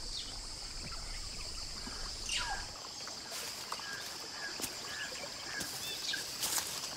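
Tropical forest ambience: a steady high insect drone with scattered short bird chirps, one falling whistled call about two seconds in, and a few light clicks.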